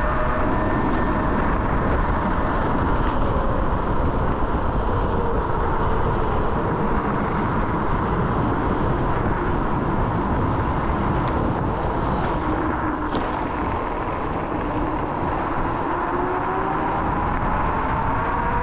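Kaabo Wolf King GT electric scooter ridden at speed: the hub motors' whine sinks in pitch as the scooter slows over the first half and climbs again near the end as it speeds back up, under a steady rush of wind on the chest-mounted camera.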